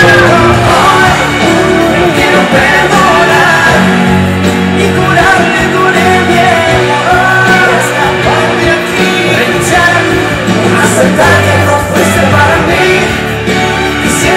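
Live band music with a man singing lead over piano and electric guitar.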